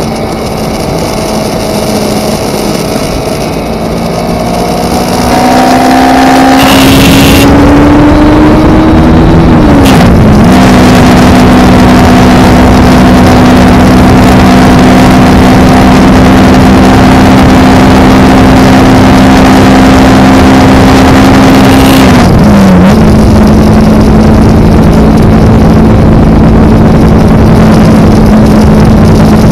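Kawasaki Ninja parallel-twin motorcycle engine under way, its pitch climbing slowly, then dropping sharply twice, about ten and about twenty-two seconds in, as it shifts up and settles to a steady cruise. From about six seconds in, loud wind rushing over the microphone drowns much of the engine.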